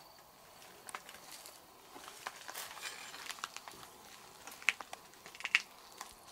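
Footsteps and rustling as a person climbs down over rock through dry grass and brush: scattered crunches, scrapes and sharp clicks, the loudest about four and a half seconds in.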